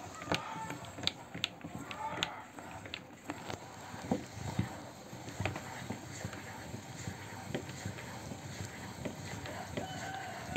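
Hand-cranked metal meat grinder being turned as it pushes toothpaste through its plate: irregular clicks and ticks from the crank and auger mechanism, with a few short squeaks.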